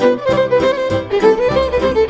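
Violin playing a Maramureș folk tune over a steady beat.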